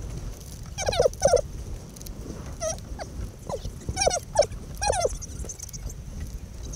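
Short, squeaky, chipmunk-like vocal sounds, a rower's calls or grunts made high-pitched by a fourfold speed-up, come in quick clusters over a steady low rumble of wind buffeting the microphone.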